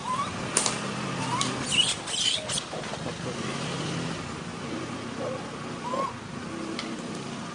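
Baby macaque crying: short rising squeaks, with a burst of harsher, shriller cries in the first few seconds, over a low steady hum like distant traffic.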